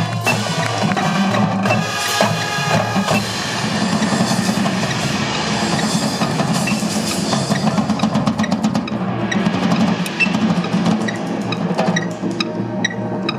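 Marching band percussion section playing a drum passage, with rolls and bass drum hits. The winds hold chords for about the first three seconds, and sharp clicks with short ringing notes take over in the last few seconds.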